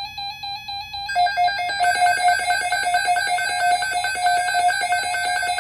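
Weather alert radio's alarm sounding: a rapid train of electronic beeps, several a second, that jumps louder and slightly lower in pitch about a second in. It signals an incoming weather alert.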